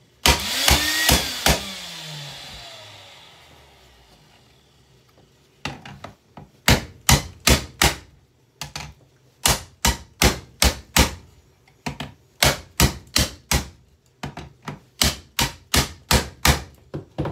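A loud crash with a rattling noise that fades over a few seconds. Then repeated hammer-like blows on a Bissell handheld vacuum cleaner as it is smashed apart, coming in quick runs of four to six strikes, about three or four a second, with short pauses between runs.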